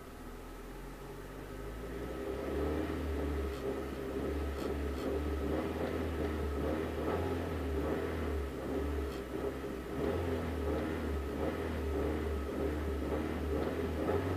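Honda Civic D17A1 1.7-litre four-cylinder engine, heard from inside the cabin, revved up from idle over the first couple of seconds and then held steady around 2,300 rpm with the car standing. This is the range where the owner reports an abnormal knocking noise, which parts-store staff suggested could be lifters, but from inside the car it is hard to hear.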